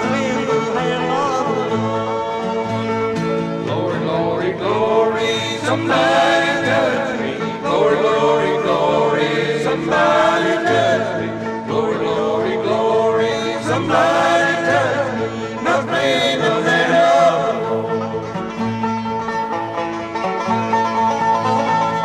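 Acoustic bluegrass band playing an up-tempo number, with five-string banjo to the fore over guitar, fiddle, mandolin and a walking upright bass.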